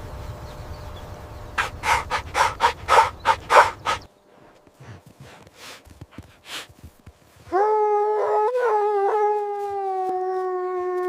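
A dog howling in one long note that sets in about two-thirds of the way through and sinks slightly in pitch. Before it comes a run of quick, rhythmic breathy puffs.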